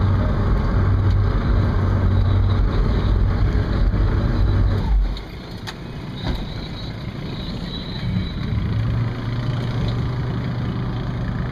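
Engine of a small high-speed passenger water bus running, heard from inside its covered cabin: a steady low hum that falls back about five seconds in and builds up again over the last few seconds as the boat manoeuvres away from the dock.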